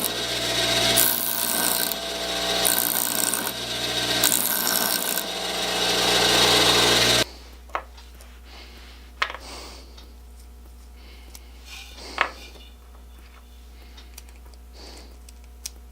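A power tool's motor running, with several harsh surges as a small metal part is worked against it, cutting off abruptly about seven seconds in. After that, a few light clicks and taps of small metal parts being handled.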